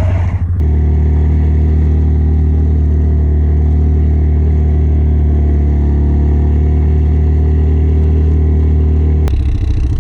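Vehicle engine running loud and steady at an even speed. It starts abruptly about half a second in and cuts off suddenly near the end.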